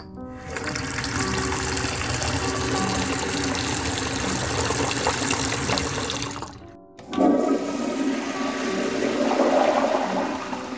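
Toilet flushing: a rush of water that dies away about six and a half seconds in, then a second flush rush starting a moment later, over faint background music.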